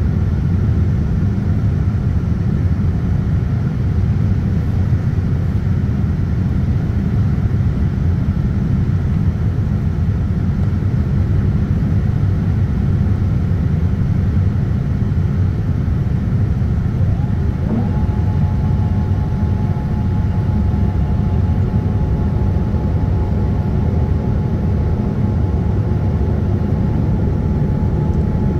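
Steady low rumble inside the cabin of a Boeing 787-10 airliner in descent, from engines and airflow over the fuselage. About two-thirds of the way through, a whine rises in pitch and settles into a steady tone that holds to the end.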